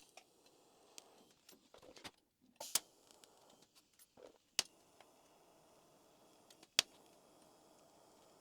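TIG welding at the foot pedal on a steel angle-iron frame: a faint low hiss, broken by three short sharp clicks about two seconds apart.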